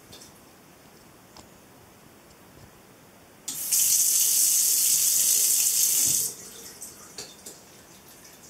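Oras Electra 6330F touch-free faucet switching on when the cat's head reaches its sensor: water hisses from the spout into the sink, along with the faucet's noisy valve, for about three seconds, then shuts off abruptly.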